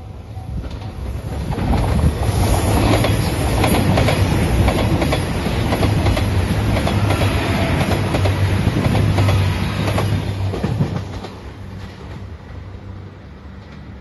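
JR Shikoku 2700 series diesel limited express train passing close by at speed, its wheels clattering over the rail joints. The sound swells over the first two seconds, stays loud, and fades away after about ten seconds.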